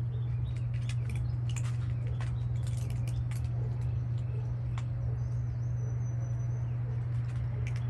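Several cats eating from bowls, their chewing and crunching heard as scattered short clicks, over a steady low hum. A faint high chirp comes about five seconds in.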